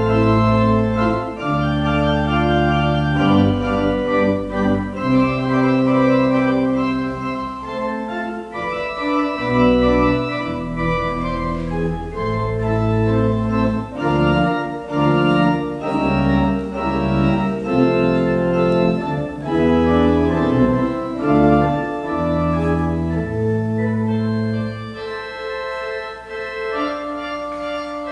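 Church organ playing slow music of sustained chords over long bass notes. Near the end the bass drops out and the organ plays more softly on higher voices.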